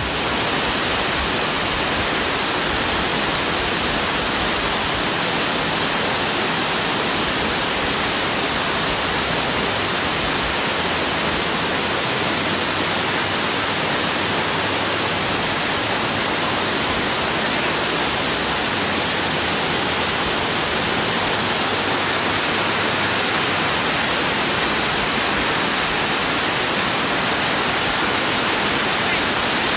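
Amicalola Falls' water rushing down, heard close: a loud, even, unbroken wash of noise.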